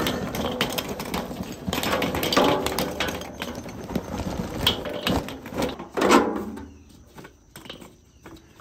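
Charcoal briquettes pouring from a paper bag into a Weber kettle grill's steel bowl, a dense clatter of briquettes tumbling onto lump charcoal and the charcoal grate. The pour tails off about six or seven seconds in, leaving a few light clicks as briquettes are shifted by hand.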